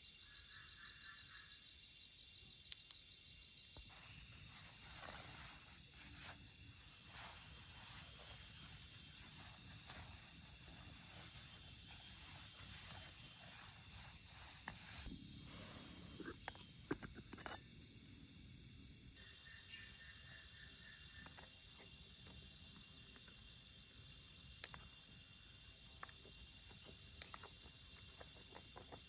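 Faint night chorus of crickets and other insects chirring steadily, with a few scattered soft clicks and knocks.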